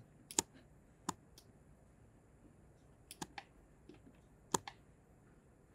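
Quiet, sharp clicks of a computer mouse, mostly in close pairs, about four pairs spread a second or two apart.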